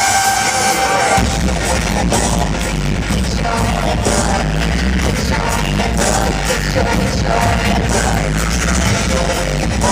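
Live electronic dance-pop played loud through a concert PA, with vocals over it; a heavy bass beat kicks in about a second in.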